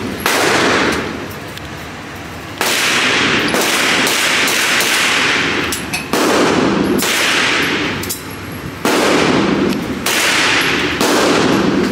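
A series of loud 9mm pistol shots, about one every one to two seconds with some closer together, each followed by a long echoing decay.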